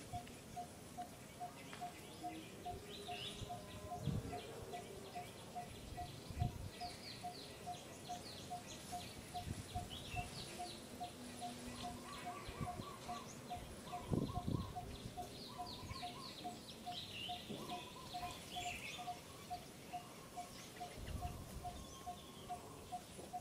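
Outdoor bird ambience. A single note ticks steadily about three times a second, while other birds chirp and twitter over it. A few short, low thumps are heard.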